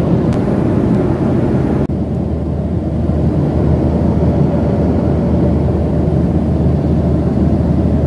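Steady cabin noise of a jet airliner in flight: a deep, even rumble of engines and rushing air with a faint hum in it, dipping briefly about two seconds in.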